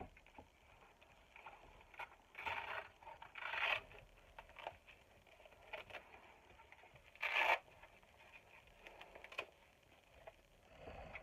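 Hands handling small plastic belt parts and hardware on a tabletop: scattered scrapes and rustles, the loudest about seven seconds in, with a few light clicks.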